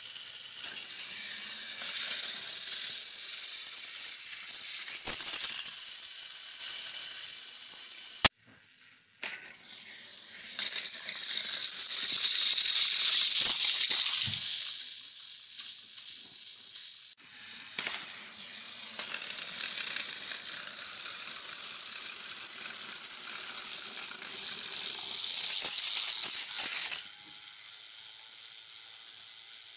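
Small battery-powered Thomas & Friends toy train motors and gears whirring with a high buzzing rattle as the engines run on plastic track. The whirring stops and restarts several times, with a sharp click about eight seconds in and a few light knocks of plastic engines tipping over.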